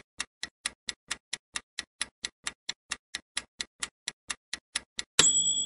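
Clock-ticking countdown timer sound effect, even ticks about four a second. About five seconds in it gives way to a louder ringing sound effect marking the end of the countdown.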